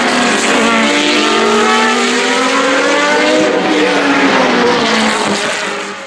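Open-wheel racing car engines, former Formula One cars, screaming at high revs as they pass, their pitch climbing as they accelerate through the gears. The sound fades away near the end.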